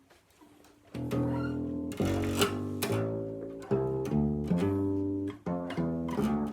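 Sigma BME+ acoustic bass guitar being plucked: after a second of quiet, a line of single bass notes played one after another.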